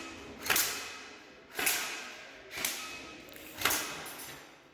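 Airsoft gun firing four single shots about a second apart. Each shot is a sharp crack that fades quickly.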